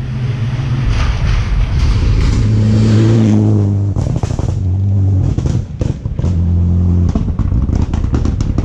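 Rally car engine revving hard, the pitch climbing and dropping back several times as it shifts gear, with sharp crackles between the shifts.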